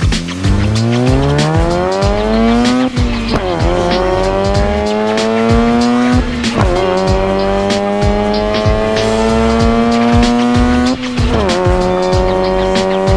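Mazda RX-8's 231 hp RENESIS two-rotor rotary engine accelerating hard through the gears: the revs climb, drop sharply at each upshift about three, six and a half and eleven seconds in, then climb again. Background music with a steady beat runs underneath.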